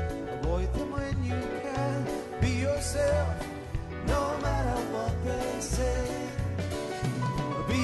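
A live band playing a song: a man singing over guitar, keyboard and drums, with a low bass line.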